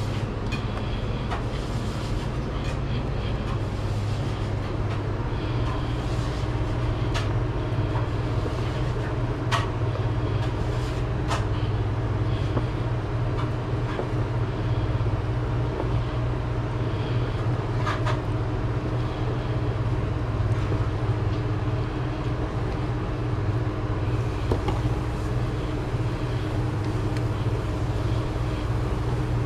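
Steady mechanical drone of food-truck equipment running at constant speed, low and even with a couple of fixed hum tones above it. Scattered light clicks and knocks of kitchen prep work sound over it.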